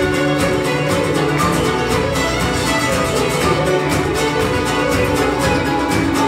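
A large fiddle ensemble playing a lively contemporary Scottish fiddle tune together, backed by guitars and keyboard with a steady beat.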